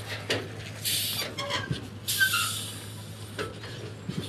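Container semi-truck moving slowly: a low steady engine hum, with several short hisses and a few faint squeaks.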